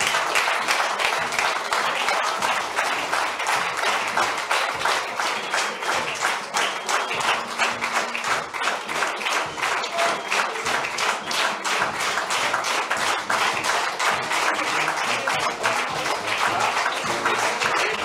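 Audience applauding, a dense, steady clapping that keeps going, with music underneath.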